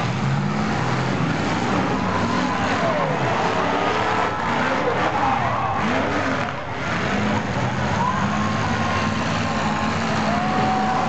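Several demolition derby car engines running and revving together, their pitches rising and falling over one another as the cars manoeuvre.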